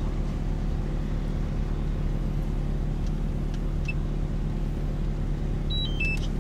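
Kobelco SK260LC excavator's diesel engine running steadily at working revs while the machine swings and digs. There is a brief high chirp near the end.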